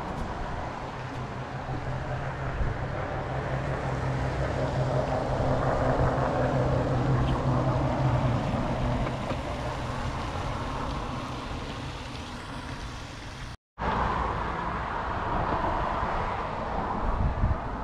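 A motor vehicle engine going by: a low, steady engine hum that swells and fades over several seconds under outdoor noise. The sound cuts out briefly about fourteen seconds in.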